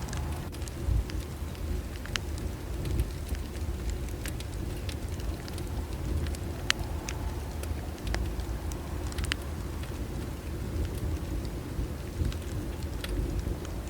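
Bonfire burning, with irregular sharp crackles and pops of the wood over a steady low rumble.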